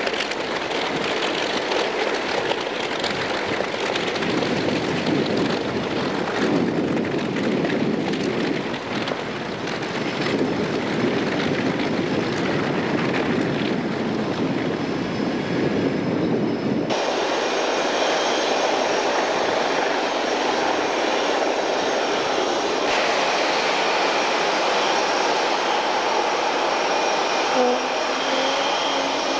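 Wright R-3350 18-cylinder radial piston engines of a Lockheed Super Constellation running together with a steady drone. About halfway through the sound changes abruptly to a thinner, higher-pitched drone with less low rumble.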